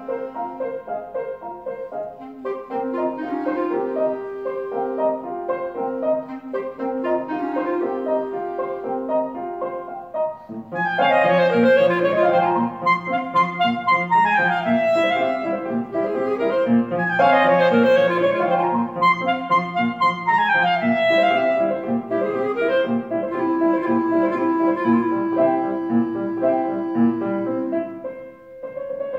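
A clarinet playing a slow, lyrical melody with accompaniment. About ten seconds in, the music grows louder and busier, with fast sweeping runs and steadily repeated low notes under the melody.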